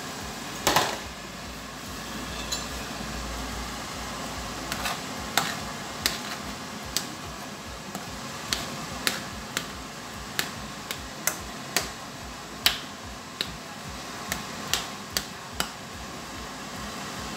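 Cookware clinking and knocking: one louder clatter under a second in, then about a dozen sharp, irregular clinks over a steady hiss, as a utensil works in a pot.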